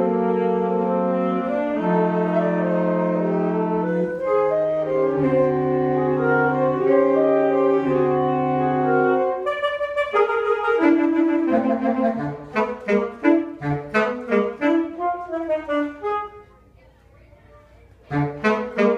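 Saxophone quartet playing: long held chords for about the first half, then short, detached notes, with a pause of about two seconds near the end before the detached notes start again.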